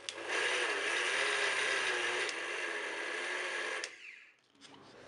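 Electric mixer grinder running with its steel jar, grinding white sugar into the thandai spice and nut powder: a steady whirr for about three and a half seconds that is switched off near the end and spins down.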